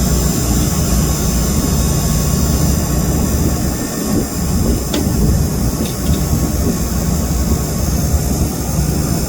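Brazing torch flame roaring steadily as refrigerant piping is brazed on an air conditioner's outdoor unit, with a single light tick about five seconds in.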